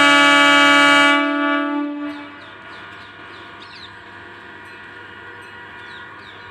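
Electric MEMU train's horn blowing one steady multi-tone blast that cuts off about a second in and dies away over the next second. After it comes the quieter steady running sound of the slow-moving train, with small birds chirping repeatedly.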